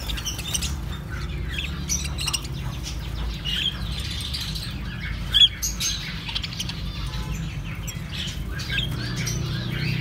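A flock of caged goldfinches chirping and twittering, with short scattered calls and one louder call about five seconds in, over a steady low hum.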